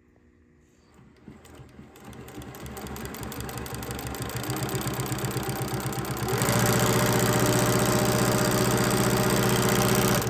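SEWPRO 8360B 360 post-bed sewing machine stitching leather at a very short stitch length. It starts slowly about a second in and gathers speed. From about six seconds in it runs fast and steady, then stops suddenly near the end.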